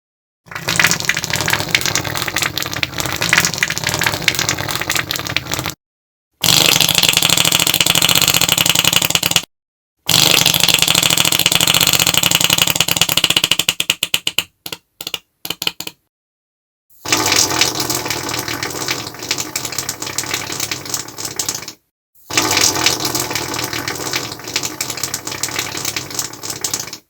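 A series of five long fart sounds, each a few seconds long, with brief silent gaps between them; the third breaks up into a few short sputters before stopping.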